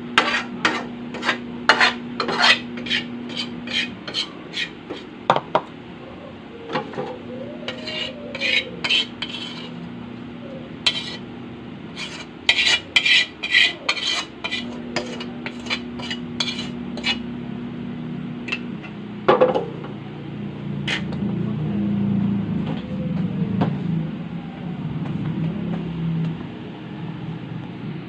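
Metal ladle scraping and clinking against a metal wok in repeated bursts of quick strikes as the last of the cooked shrimp and butter-garlic sauce is scooped out, with one louder clang about nineteen seconds in.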